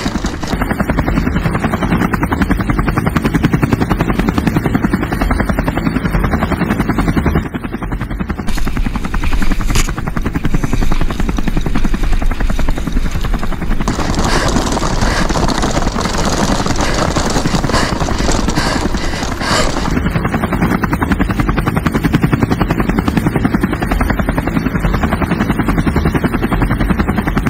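Helicopter rotor chopping steadily, a fast even beat of thuds, with a rushing hiss over it for a stretch in the middle.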